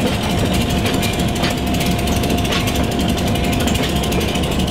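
Diesel locomotive engines running steadily with a loud, rapid chatter, over a thin steady whine.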